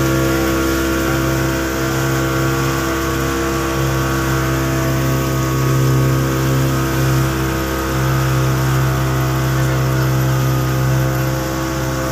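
Motorboat engine running steadily at speed, with the rush of water from the boat's wake.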